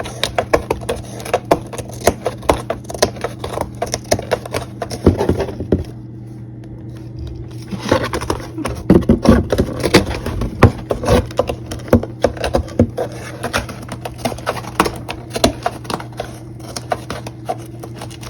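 Packing paper and cardboard boxes rustling, crackling and scraping as cats play in them, in dense irregular bursts with a quieter pause about six seconds in. A steady low hum runs underneath.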